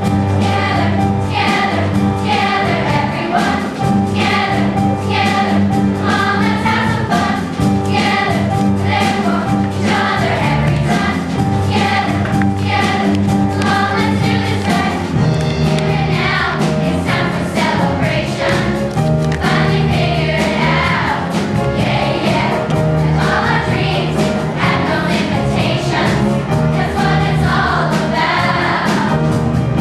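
A large youth choir singing, with held low notes sounding beneath the voices.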